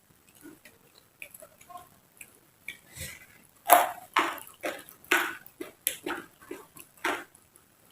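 Close-up chewing of raw vegetables, with small wet mouth clicks at first. From about halfway through it turns to loud crunching chews, about two a second.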